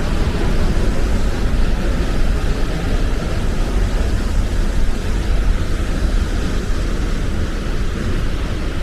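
Large waterfall's steady rushing noise, deep and unbroken.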